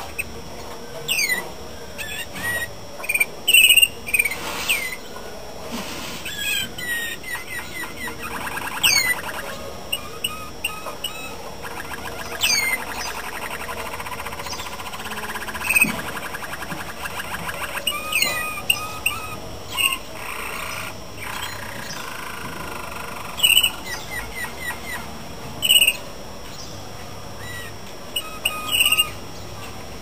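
Male Malinois (Waterslager) canary singing through its song repertoire. Short sweeping whistled notes alternate with long, rapid rolling trills that last several seconds each, most of them in the middle of the stretch.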